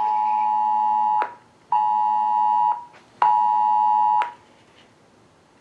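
Wireless Emergency Alert attention signal on a mobile phone: the harsh two-tone alert blare in its on-off pattern. A long tone already sounding stops about a second in, then come two one-second tones with half-second gaps, ending about four seconds in, with a low buzz beneath each tone.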